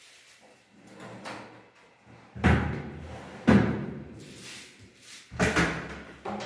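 Aluminium-framed kitchen drawers being pushed shut and an aluminium cabinet door being worked: a series of knocks and bangs, two strong ones about two and a half and three and a half seconds in, and more just before the end.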